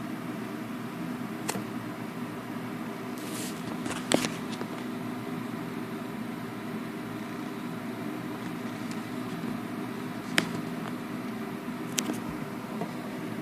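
Steady low machine hum with an even hiss, like a fan or appliance running, broken by four sharp clicks or knocks. The loudest knock comes about four seconds in, just after a brief hiss.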